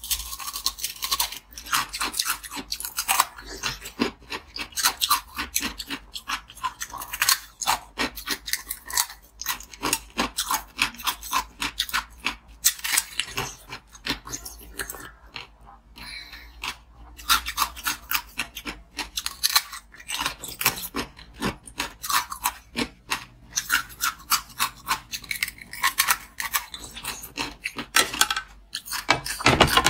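Crunching and chewing of a green, bell-pepper-shaped block of ice, bitten off mouthful after mouthful: dense crackling snaps close to the microphone, with a couple of short pauses.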